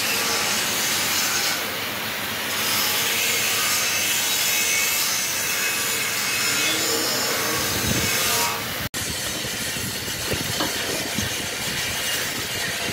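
Loud, steady rasping hiss of metal fabrication work on a steel machine frame. It cuts off abruptly about nine seconds in and carries on with scattered knocks.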